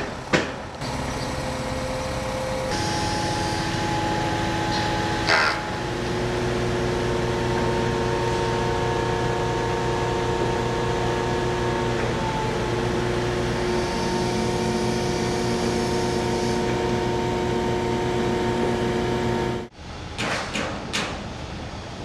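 Construction machinery engines running with a steady hum, the pitch changing abruptly a few times. Near the end the hum cuts off and a few sharp knocks follow.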